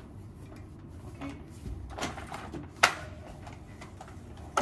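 A few clicks and knocks from the white plastic frame of a folding baby high chair being handled, with one sharp click near three seconds in as the loudest.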